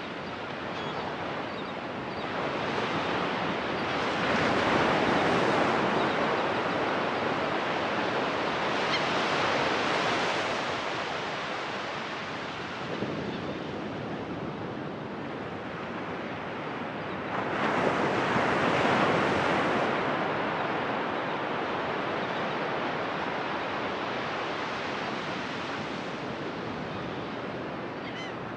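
Ocean surf breaking on a sandy beach, a steady wash that swells as each set of waves breaks, loudest about five seconds in and again around eighteen seconds.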